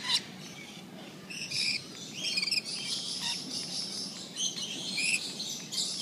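Lorikeets calling in short, shrill, high-pitched chirps and screeches, a couple every second.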